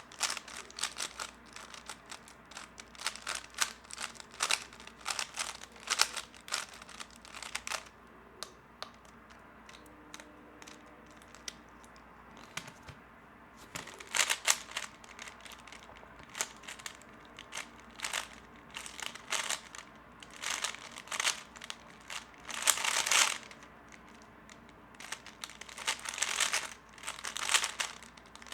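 3x3 speedcube being turned fast, its plastic layers clacking in rapid bursts of clicks broken by short pauses, with a longer lull of about six seconds partway through.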